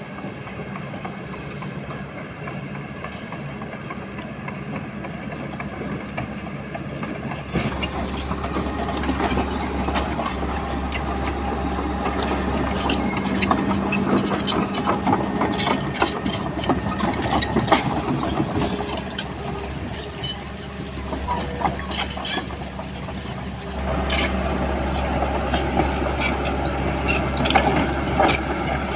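Diesel engine of heavy earthmoving machinery running steadily, growing louder about seven seconds in, with frequent clanking and scraping from the machine working stone.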